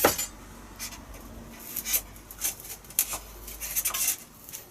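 Carbon fibre spar dragged back and forth through a slot cut in a foam wing, scraping the slot wider so the spar fits. It makes a run of irregular short scrapes, the first one the sharpest.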